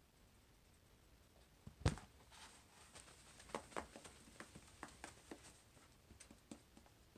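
A small dry-erase whiteboard set down on a hard table with one knock about two seconds in, followed by a run of light scuffs and taps as the board is wiped and a marker is handled.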